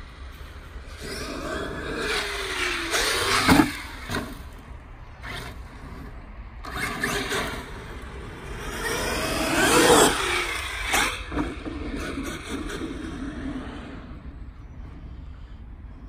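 Electric radio-controlled off-road cars driving past twice, about three and a half and ten seconds in, the motor whine rising then falling with each pass over tyre noise on dirt. Sharp knocks come just after each pass.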